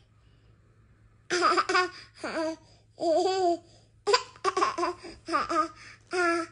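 A baby laughing in a series of short bursts, starting about a second in.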